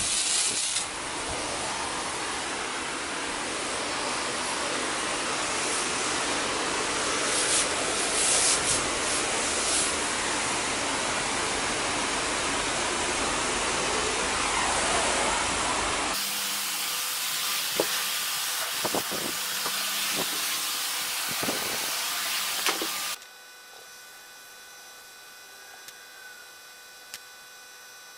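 Carpet pre-spray wand misting cleaning solution onto carpet: a steady pressurized hiss. It stops abruptly with about five seconds left, leaving quiet room tone.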